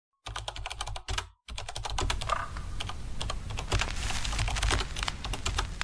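Rapid, irregular clicking of keys being typed on a computer keyboard, with a short break about a second in.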